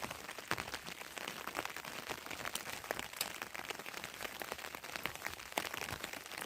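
Heavy rain falling, drops striking a surface close by as a dense, irregular ticking over a steady hiss.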